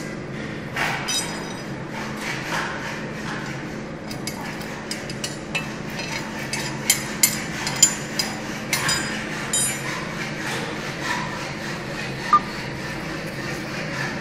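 Metal parts clinking and tapping now and then over a steady machine hum during stud-welding work; the sharpest clinks come in a cluster about halfway through and once more near the end.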